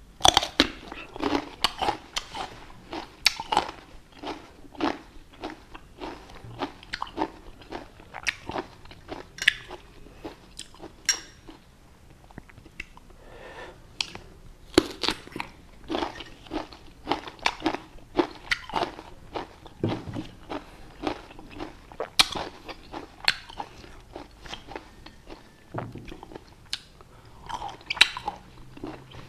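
Close-miked crunchy biting and chewing of fresh fruit, with irregular clusters of crisp crunches throughout and a short lull about halfway through.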